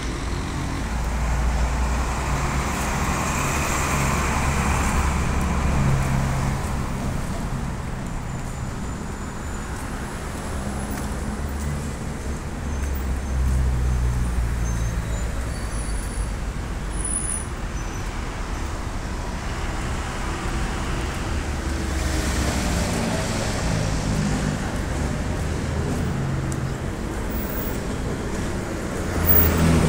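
Street traffic: car engines running and vehicles driving past, with a steady low rumble and two louder swells as vehicles go by, one about a second in and another past the two-thirds mark.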